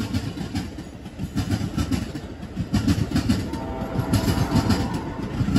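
Metra commuter train's bilevel passenger cars rolling along the rails, the wheels clicking over rail joints in an irregular run of clacks over a low rumble, louder in the second half.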